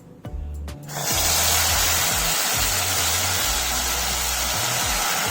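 Vegetable puree poured into hot ghee and cumin seeds in a pan, bursting into a loud, steady sizzle about a second in.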